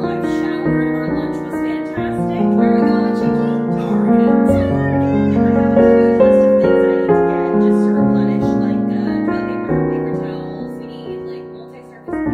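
Soft background piano music playing a gentle melody over sustained chords; it fades down near the end, then a new phrase comes in sharply.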